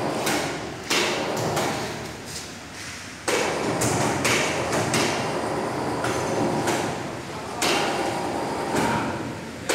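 5-ton electric chain hoist on an overhead crane working under a heavy steel tank during a load test: clanking and rumbling metal, with three sudden loud starts, about a second in, after about three seconds, and near the end, each dying away over a couple of seconds.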